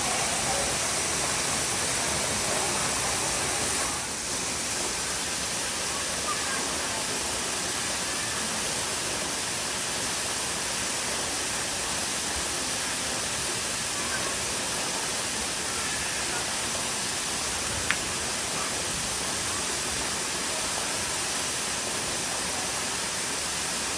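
Waterfall: a steady, even rush of falling water, with a single sharp click about three-quarters of the way through.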